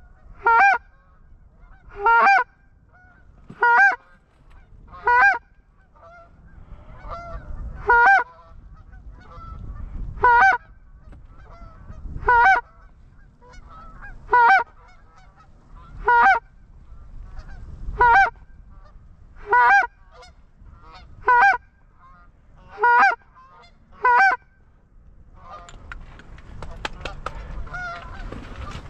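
Goose honks: a steady run of loud single honks, one every second or two, over wind rumbling on the microphone. About 25 seconds in the honks stop, leaving wind and fainter, scattered calling.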